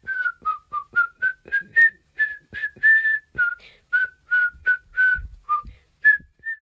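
A person whistling a tune of about twenty short notes, around three a second, that stops shortly before the end.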